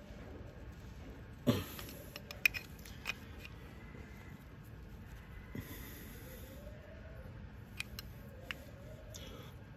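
Scattered sharp clicks and knocks of tools and metal parts against a scooter's rear brake caliper while its pistons are pressed back in. The loudest knock comes about one and a half seconds in, with a few lighter clicks after it and again near the end.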